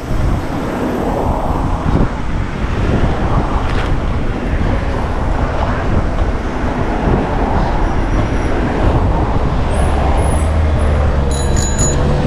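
Steady road and traffic rumble with wind buffeting the microphone while riding a bicycle along a road. A few thin high-pitched tones come in near the end.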